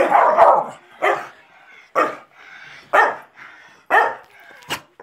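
Staffordshire bull terrier barking in bursts about once a second, about five barks in all, the first drawn out longer than the rest.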